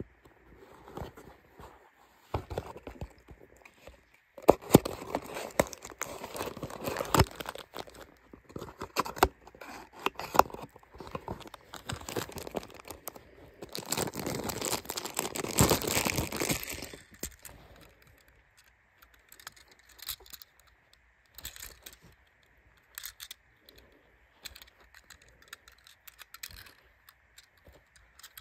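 Cardboard toy box being opened and a die-cast toy car pulled out of its thin plastic wrapper: crinkling and tearing plastic with sharp clicks of cardboard, loudest around the middle. In the last third it turns to sparse light taps and clicks as the small metal car is handled.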